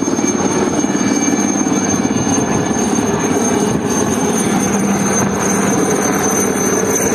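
Helicopter flying low overhead, its rotor beating in a rapid, even pulse over the steady wash of surf breaking on the shore.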